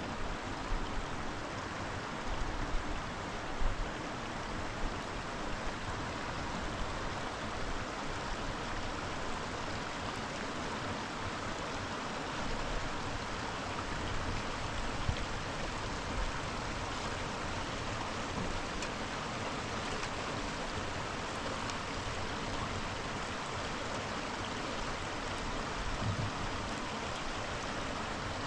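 Steady rush of running water from a small mountain stream, with a few low thumps in the first few seconds.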